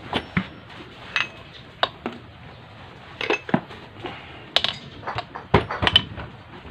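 Irregular metal clinks and light knocks as the aluminium crankcase of a Bajaj CT 100 motorcycle engine is wiped with a rag and turned over by hand, with the loudest few knocks near the end.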